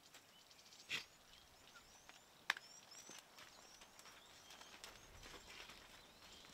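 Faint open-air ambience with small birds chirping repeatedly, scattered light clicks, a short scuff about a second in and one sharp click about two and a half seconds in.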